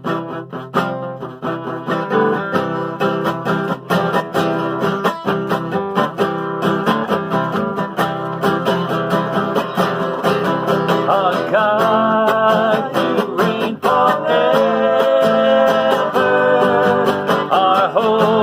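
Acoustic guitar strummed in a steady rhythm, playing a worship song's chords; a singing voice comes in a little over halfway through.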